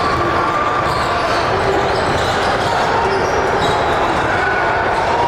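Live gym sound of a basketball game: a basketball bouncing on the court over a steady, dense background of crowd chatter, with short high squeak-like tones scattered through.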